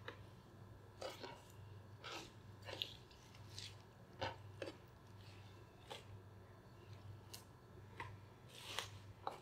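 Fresh cilantro and parsley being handled, giving faint, irregular rustles and a few light clicks as the leaves are picked and dropped into a food processor bowl, over a low steady hum.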